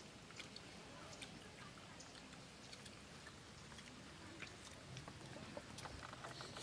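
Faint sounds of people eating rice by hand from banana leaves, with scattered soft clicks and chewing.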